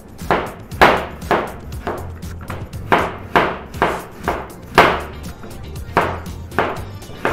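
Kitchen knife slicing a peeled green apple into thin slices on a plastic cutting board: a sharp knock each time the blade reaches the board, about two a second at an uneven pace.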